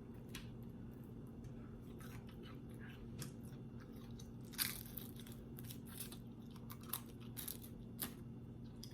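Close-up eating sounds: chewing and crunching bites, with scattered short sharp crackles and clicks, over a steady low hum.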